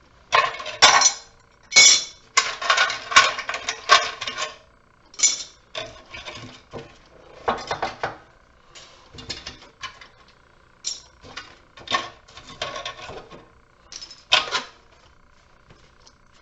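Metal scrap parts clinking and clattering in irregular bursts as they are handled.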